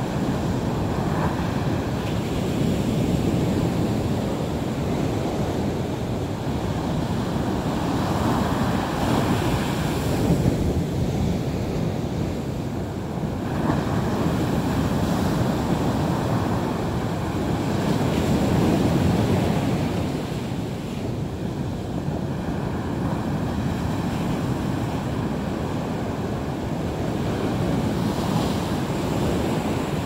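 Sea waves washing onto the shore, a continuous surf that swells and ebbs every several seconds, with wind buffeting the microphone.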